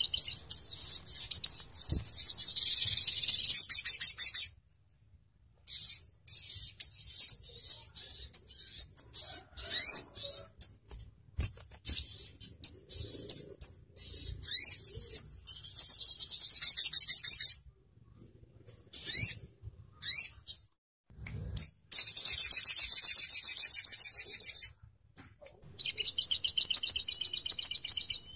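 Olive-backed sunbird (sogon ontong) song: high-pitched, rapid trills lasting two to three seconds each, four times, with short chirps and quick rising notes between them. It is a 'nembak' rapid-fire series played as master and lure audio to get sunbirds to answer and sing.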